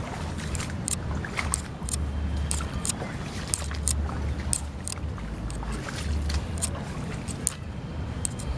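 Wind buffeting the microphone in uneven gusts, with many scattered short clicks and knocks of footsteps and gear on a rocky coastal path.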